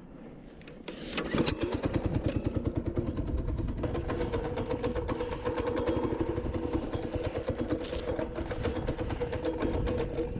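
Mini bike's small engine starting about a second in, then running steadily with a rapid, even putter.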